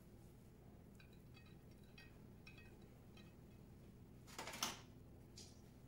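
Quiet handling sounds from garnishing a plated dish: faint light clicks as chopped herbs are scattered on, then a short rustling scrape a little past four seconds in, the loudest sound, and a fainter one soon after.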